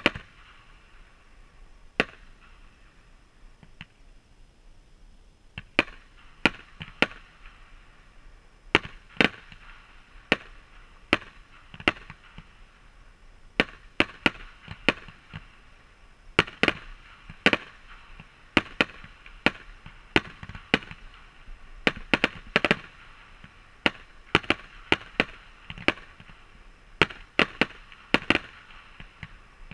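Aerial fireworks going off: a sharp report at the start and another about two seconds in, then from about six seconds a quick, irregular run of bangs, several a second at times, over a steady hiss.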